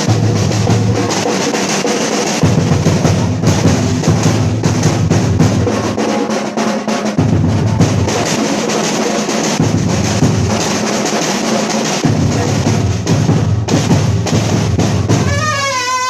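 Samba batucada: a bateria drum ensemble playing a fast, dense groove, with deep surdo bass drums under rattling snares. A wavering high tone, like a whistle or horn, comes in near the end.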